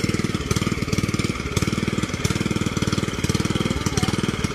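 Engine of a water pump draining a pond, running steadily with a rapid, even firing beat.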